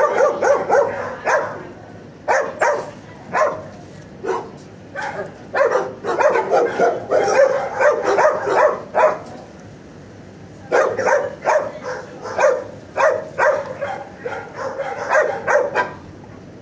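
Dog barking repeatedly in quick runs, with short breaks about four seconds and ten seconds in.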